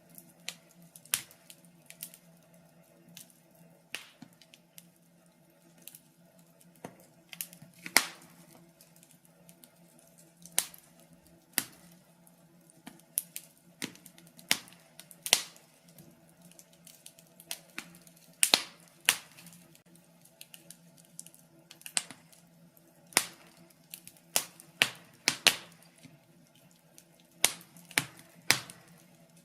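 Wood fire in a fireplace crackling, with sharp irregular pops from one to several a second over a faint steady low hum.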